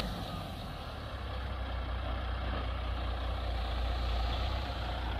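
Dump truck's diesel engine running steadily with a low hum while its raised bed tips out a load of crushed recycled concrete.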